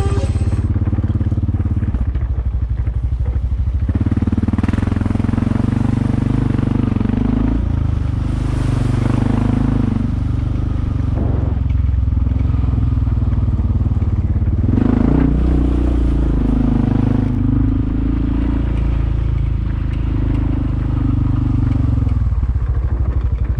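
Off-road vehicle engine running under way along a trail, its pitch rising and falling a little with the throttle.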